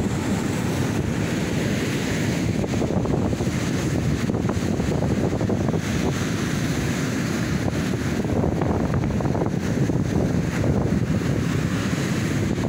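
Steady wind noise on the microphone, with sea surf breaking on the beach.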